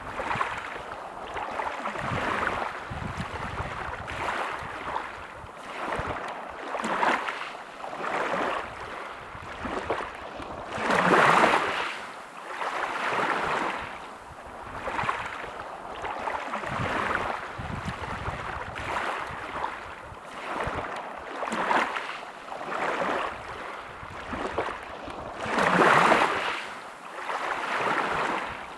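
Sea waves washing ashore in repeated swells, one every second or two, with two bigger surges, one about eleven seconds in and one near the end.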